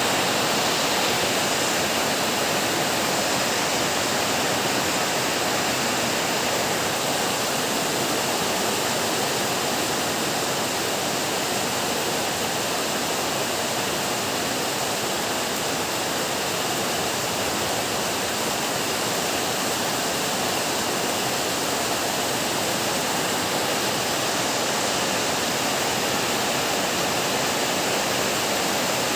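Heavy rain falling in a steady downpour, an even hiss with no thunder or single drops standing out.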